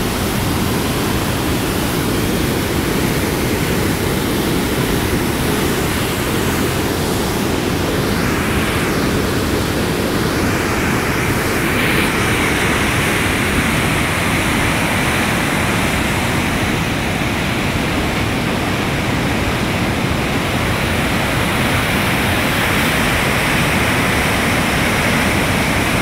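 Steady rushing of a swollen, muddy flash-flood river, a dense, unbroken noise of water pouring past a concrete wall.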